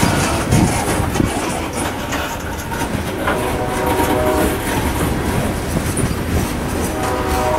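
Freight train of open-top railcars rolling past: a steady rumble with wheels clicking over rail joints. Faint steady tones at several pitches come in during the second half.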